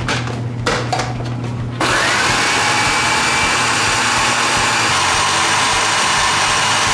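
A few clicks as the food processor's lid and pusher are fitted, then a little under two seconds in its motor starts with a rising whine and runs steadily at full speed, chopping panko breadcrumbs and basil.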